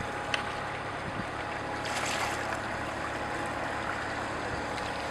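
Engine of a large canal work boat running as it passes, with its wash churning the water and wind on the microphone. A brief rush of noise comes about two seconds in.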